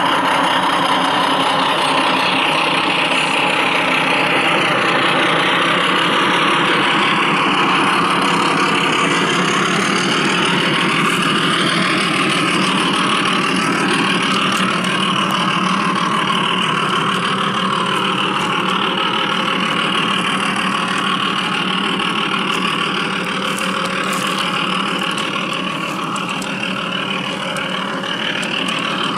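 Diesel engine sound from an ESU sound decoder, played through the speaker of a garden-railway model locomotive, running steadily as the locomotive travels along the track, slightly quieter near the end.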